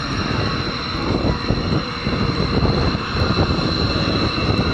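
Military jet engines running on the ground: a steady high whine over a loud, uneven low rumble.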